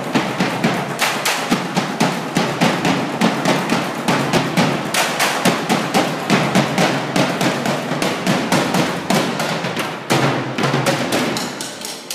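Student percussion ensemble playing a fast, dense rhythm of stick strikes, several players at once. A loud accented hit comes about ten seconds in, and the playing thins out near the end.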